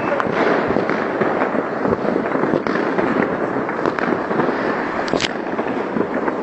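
Many fireworks going off at once: a steady, dense crackle of overlapping bangs and pops, with one sharper crack about five seconds in.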